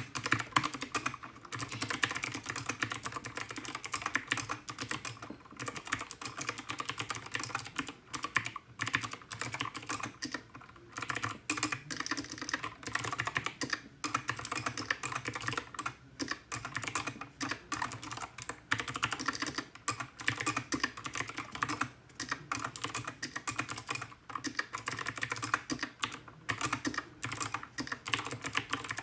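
Continuous typing on a GK61 mechanical keyboard with clicky Gateron Blue switches: a dense run of sharp key clicks with brief pauses between bursts.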